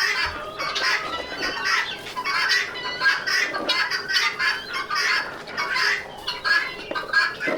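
A flock of chickens clucking, with many short overlapping calls.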